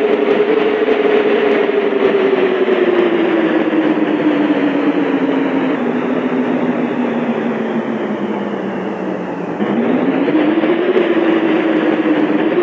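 Bus running with a steady whine under a noisy rumble; the whine's pitch falls slowly as the bus slows, then about ten seconds in it rises again as the bus picks up speed.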